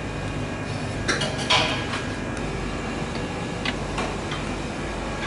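A few short clatters and crinkles of plastic-wrapped packaged goods being handled at a shop freezer, over a steady low hum of refrigeration and fans.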